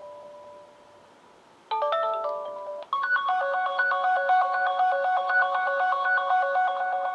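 Sonim XP6 phone ringtones played loud through the phone's speaker. The ringing tail of one tone fades out, a quick descending run of chime notes sounds just under two seconds in, and about three seconds in a new ringtone melody of fast, bright repeating electronic notes begins and keeps going.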